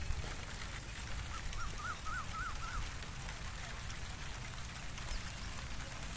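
A bird calling a quick run of about six short chirps, starting about a second in, over a steady low outdoor rumble.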